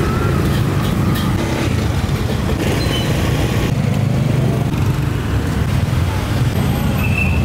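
Steady low rumble of street traffic and motorbikes, with the general background noise of a busy market.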